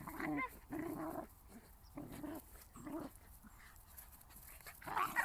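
Two dogs fighting, giving short pitched vocal sounds about once a second, with much louder cries starting near the end.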